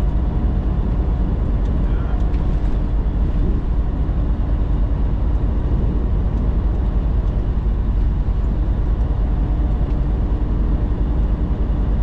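Semi tractor's diesel engine and road noise heard from inside the cab while cruising, a steady low rumble.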